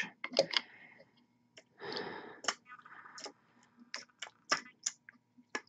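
Quiet handling sounds: a dozen or so small, sharp clicks scattered throughout, with two short soft breathy rustles about two and three seconds in.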